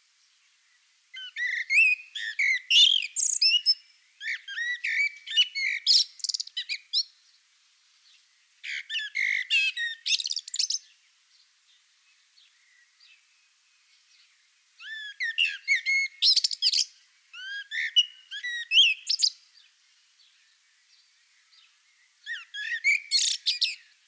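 Common blackbird (Turdus merula) singing: six phrases of fast, high, twittering notes that rise and fall, separated by short pauses, with a longer gap near the middle.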